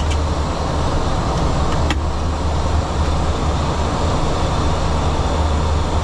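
Steady cockpit noise of a Boeing 737-800 climbing out after takeoff: the CFM56 engines at climb thrust and the airflow over the nose, with a strong low hum. A brief click about two seconds in.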